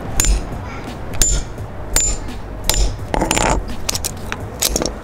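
Hammer striking the top of a hammer-type lug crimper, about six sharp metallic blows roughly a second apart, each with a brief high ring, setting the crimp of a copper lug onto 2/0 battery cable.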